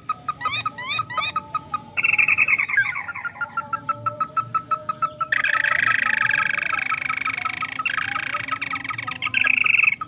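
Crake calls played as a bird lure: a fast series of short rising notes, a loud rattling trill about two seconds in, then a long continuous trill from about five seconds in until shortly before the end.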